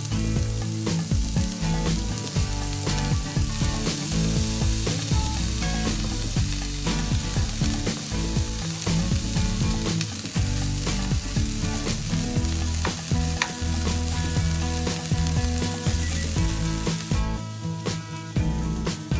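Diced onions sizzling in an oiled non-stick frying pan while a wooden spatula stirs and scrapes them across the pan, being sautéed until browned. The sizzling stops suddenly near the end.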